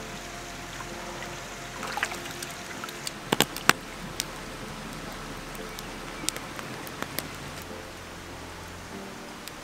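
Wood fire crackling under a galvanized bathtub, with scattered sharp pops and a cluster of loud ones about three and a half seconds in, over a steady watery rushing.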